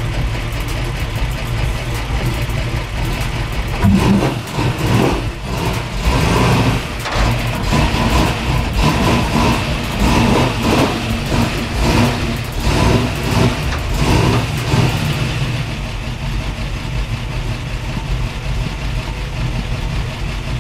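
A vehicle engine running with a steady low rumble. From about 4 to 15 seconds in it is revved up and down unevenly, as when a car is driven onto a car-hauler trailer during loading.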